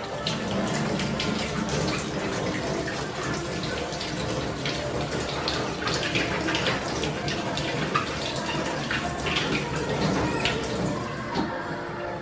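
Kitchen tap running into a stainless steel sink while an apple is rubbed and rinsed under the stream, with water splashing off the hands and fruit.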